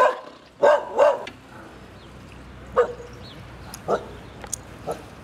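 A dog barking: a quick run of loud barks at the start, then three single, fainter barks about a second apart.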